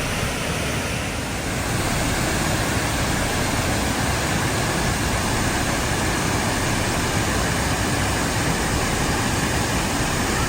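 Tahquamenon Falls' waterfall, a steady, loud rush of falling water.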